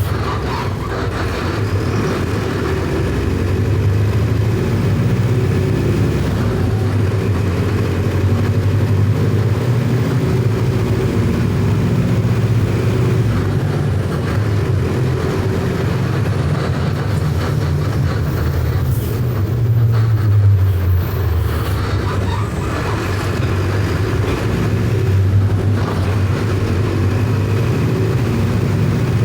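Mercedes-Benz OF 1519 bus's four-cylinder electronic diesel engine running on the road, its note rising and falling a few times with the throttle.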